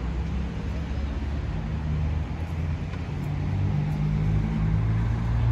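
Motor vehicle engine running, a low hum that shifts slowly in pitch and grows louder in the second half.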